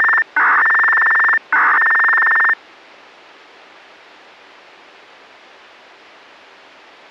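Analog municipal disaster-prevention radio broadcast heard through a handheld scanner receiver: loud buzzing electronic signal tones in pulses about a second long, which stop about two and a half seconds in, followed by the steady hiss of the open radio channel.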